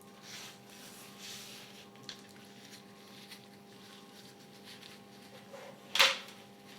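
Gym chalk being handled in water: soft wet squishing and rubbing, a small click about two seconds in, and one sharp, loud crack or splash about six seconds in.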